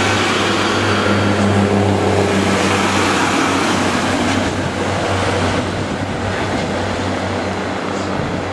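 Class 142 Pacer diesel multiple unit moving past, its underfloor diesel engine giving a steady low drone over wheel and rail noise, easing off somewhat in the second half as the train draws away.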